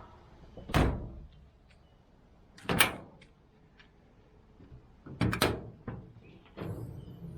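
A series of sharp clunks and knocks, about five spread over several seconds, with two in quick succession near the middle, as gear is handled and fitted in the back of a Nissan Patrol.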